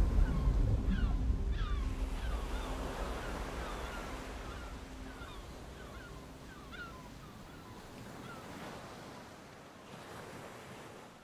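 Ocean surf ambience, a low wash of waves that fades steadily away and dies out at the end, with many short, quick chirping calls above it through most of the fade.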